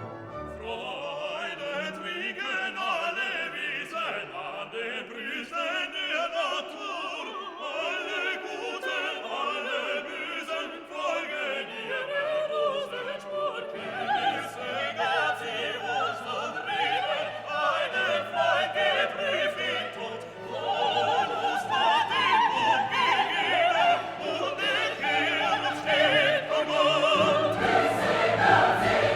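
Classical music: an operatic voice singing over an orchestra, growing louder in the last third.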